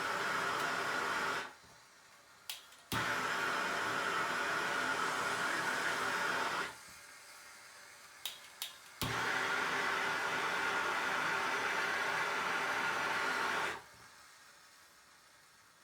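Gas soldering torch burning with a steady hiss while copper pipe fittings are heated for sweat soldering. It is shut off three times; twice it is re-lit with a couple of igniter clicks and a pop as the flame catches, about three and nine seconds in.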